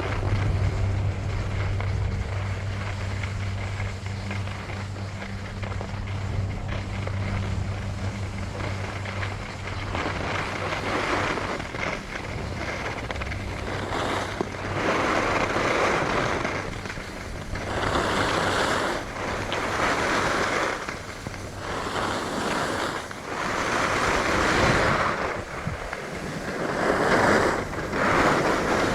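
Skis carving on groomed snow, a swishing scrape with each turn every two to three seconds from about a third of the way in, over wind buffeting the microphone. Before the turns begin, a steady low hum runs under the wind.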